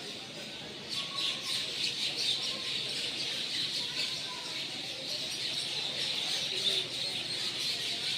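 A large flock of small birds chirping together in a dense, unbroken chorus that grows thicker about a second in: birds gathering at their evening roost.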